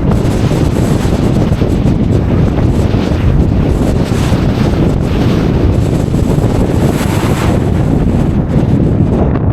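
Strong wind buffeting the microphone in gusts, a loud low rumble that swells and eases.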